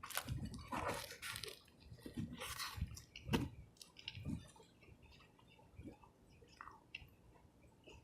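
Close-miked chewing of a cheese fish sub and fries. The chewing is loud for the first four seconds or so, then quieter, with small mouth clicks.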